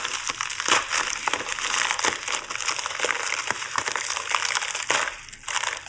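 Padded mailer crinkling and rustling as it is slit open with a blade and the wrapped contents are pulled out: a dense run of rustles and small crackles, with a brief lull near the end.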